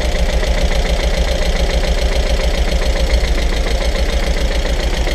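Audi TT mk1's freshly rebuilt engine running with a hard, fast, even knocking. The owner puts the knock down to two cylinders not firing on old spark plugs damaged by the valves.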